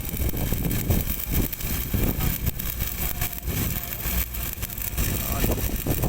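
Stick-welding arc crackling and hissing steadily as a rod is run downhill on pipe, with an irregular low rumble underneath.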